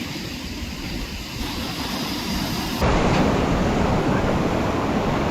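A low steady rumble, then about three seconds in an abrupt switch to louder surf and wind noise from breaking waves.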